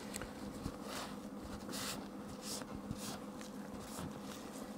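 Quiet room tone: a steady low hum with a few faint, brief rustles and tiny clicks.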